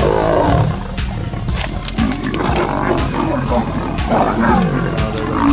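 Lions growling and a cornered leopard snarling in bouts as the pride closes in on it, over background music.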